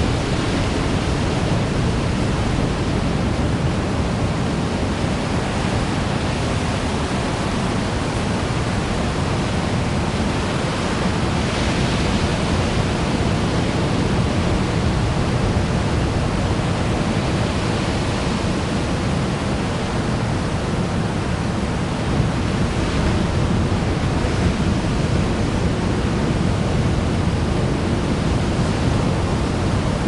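Ocean surf breaking and washing onto a beach: a steady, full roar of water, swelling slightly a few times as bigger waves break.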